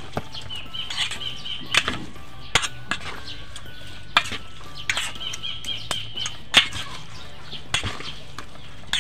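Metal spoon clinking and scraping against a stainless steel bowl as a flaked fish patty mixture is stirred, with sharp irregular clinks about once a second.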